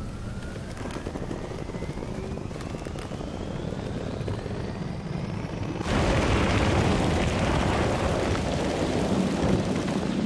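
Audi e-tron demonstrator's electric motors whining, rising steadily in pitch as the car accelerates up the snow slope. About six seconds in, a louder rush of spiked tyres churning through snow takes over, heard close to the wheel.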